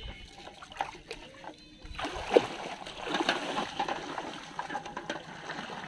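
Legs wading through shallow flooded water among water plants, splashing and sloshing. It starts about two seconds in, with one sharp loud splash just after.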